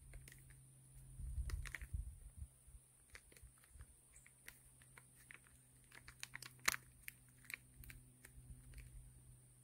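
Faint, scattered small clicks and light handling noise over a low steady hum, with a brief low rumble about a second in.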